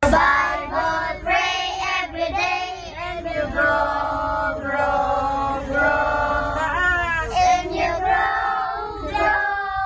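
A group of children singing a song together, with long held notes.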